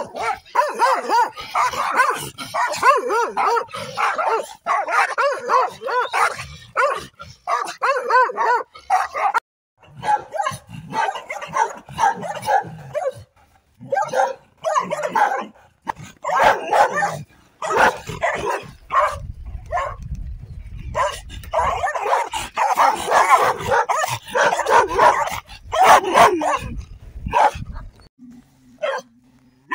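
Several dogs barking aggressively at close range, in fast, dense runs of barks that break off briefly a few times. A low rumble on the microphone sits under the barking partway through.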